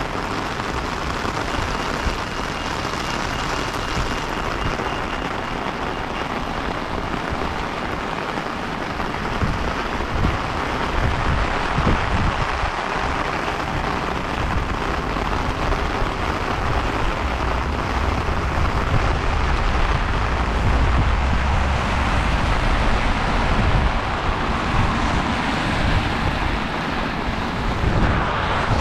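Heavy rain falling on a city street, a steady hiss, with a deep low rumble building through the second half.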